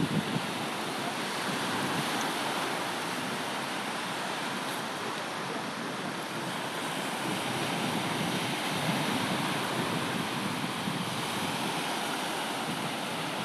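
Low surf washing onto a sandy beach, a steady rush of waves, with wind buffeting the microphone.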